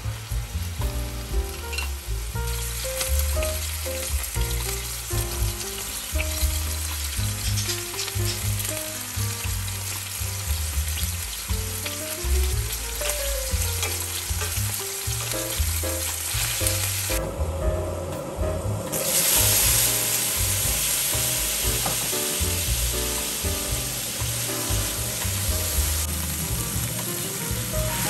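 Diced chicken breast sizzling as it fries in oil in a stainless steel pan, stirred with a wooden spoon. The sizzle drops out briefly about two-thirds through, then comes back louder. Soft background music with a bass line plays underneath.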